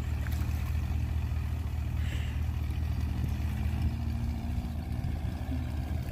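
Johnson 140 hp two-stroke outboard running at low speed, heard from the shore as a steady low engine hum, with the pitch lifting slightly about halfway through as it pushes the boat away.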